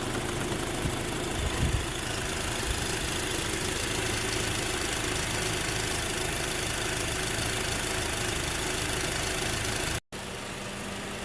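2010 Acura TSX engine idling steadily, with the air-conditioning system just recharged after a compressor replacement. The sound drops out for an instant about ten seconds in, then the idle carries on slightly quieter.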